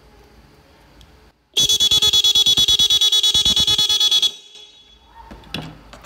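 Disc-type electric vehicle horn blaring in rapid pulses, about ten honks a second, for under three seconds, then cut off. A two-transistor pulsing circuit makes a single press give a machine-gun stream of honks. It is very loud. A few handling clicks follow.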